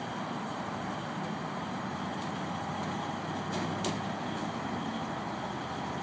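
Diesel fire engines running steadily in the station bays during a turnout, with two short sharp clicks a little past the middle.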